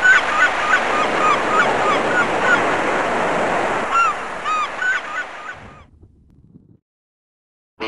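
Gulls crying repeatedly over a steady wash of sea surf, both fading out about six seconds in.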